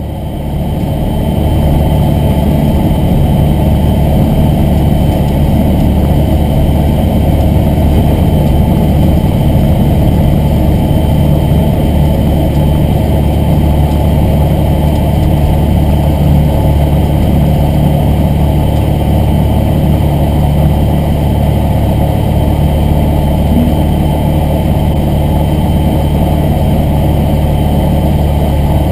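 Aeroprakt A22LS's Rotax 912 flat-four engine and propeller running steadily at low taxi power, heard from inside the cockpit. The sound fades in over the first second or so.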